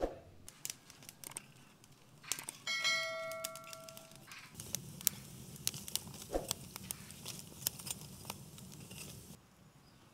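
Wood fire crackling in a brick wood-stove firebox, a dense run of sharp pops and snaps over a low rush of burning. A brief ringing tone sounds about three seconds in, before the crackling swells.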